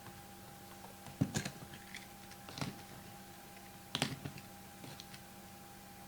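Scattered light clicks and taps from trading-card packaging being handled and opened, over a faint steady hum. The two clearest taps come about a second in and about four seconds in.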